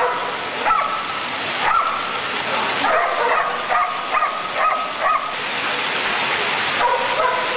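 Pit bull-type dogs running on treadmills, giving short high-pitched yelps and barks again and again over a steady rushing noise.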